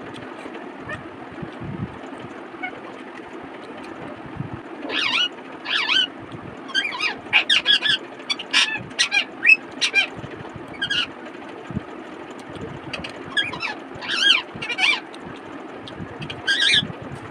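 A series of short, chirping bird calls, one cluster starting about five seconds in and another near the end, over a steady low hum.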